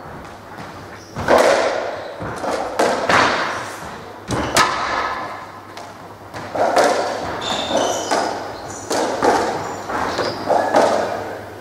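Racketball rally on a squash court: the ball is struck by rackets and smacks off the walls, sharp thuds about once a second that echo around the court. Short high squeaks of shoes on the wooden floor come in the second half.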